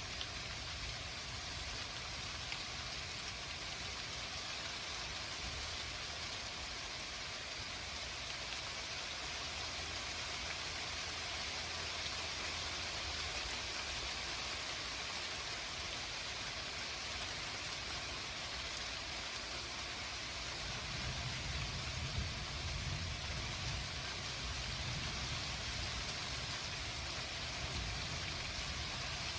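Thunderstorm rain falling steadily, a continuous hiss of drops, with a low rumble swelling in and out over the last third.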